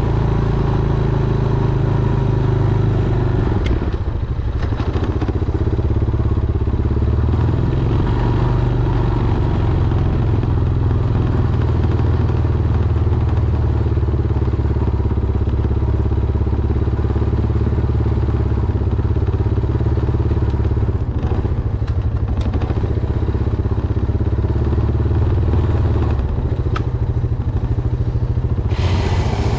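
Honda Foreman ATV's single-cylinder four-stroke engine running steadily while plowing snow. Its note shifts about four seconds in, with a few scattered clanks and thumps.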